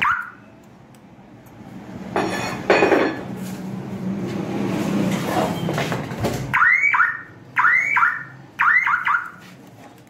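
Aftermarket car alarm siren sounding on the bench: a short chirp at the start, then, from about two-thirds of the way in, a repeating rising whoop about once a second. It is sounding because the door-switch trigger wire is not yet grounded; grounding it stops the noise.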